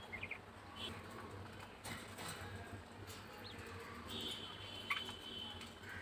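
Pet birds chirping and twittering in short high calls, with a longer stretch of twittering near the end and a few sharp clicks.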